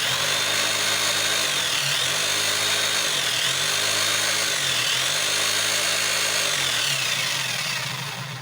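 Electric motor of a 0810 5 kg demolition breaker hammer running at speed with a steady whine. Its pitch dips briefly three times, then it is switched off and winds down near the end.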